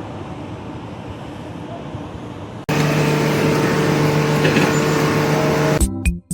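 Steady machine noise, then an abrupt switch about two and a half seconds in to a louder running engine or machine with a steady hum. Music starts near the end.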